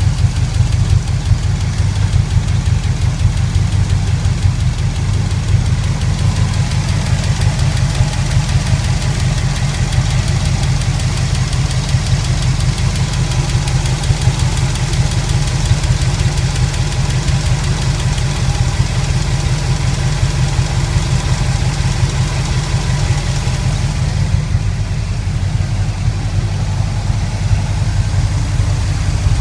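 Pontiac 400 V8 engine running steadily with a fast, rhythmic tapping from the valvetrain, which the owner takes for a lifter gone bad.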